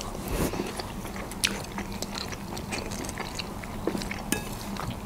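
Close-miked eating sounds: chewing and mouth noises, with scattered light clicks of metal forks against plates and teeth.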